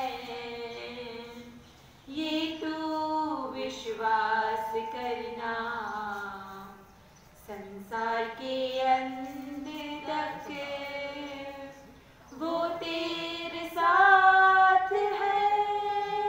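Two female voices, a woman and a girl, singing a prayer song without accompaniment, in long held phrases with short breaks about every five seconds.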